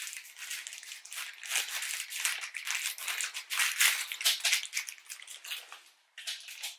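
A small plastic bag of wooden dowels crinkling as it is torn open and handled: a dense run of quick crackles that dies away about six seconds in, then one short burst of crinkling near the end.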